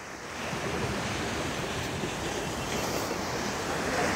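Ocean surf washing in, a steady rush that swells about half a second in and grows louder near the end.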